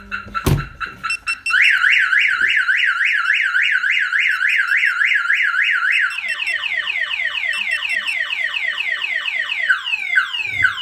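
Viper aftermarket car alarm siren going off, set off by a door being opened, after a thump near the start. It cycles through its tones: a fast up-and-down warble about four times a second, then rapid falling sweeps from about halfway, then slower falling sweeps near the end.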